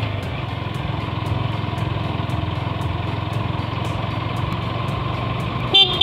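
Yamaha YZF-R15 V3's single-cylinder four-stroke engine running steadily while riding. A short horn toot sounds near the end.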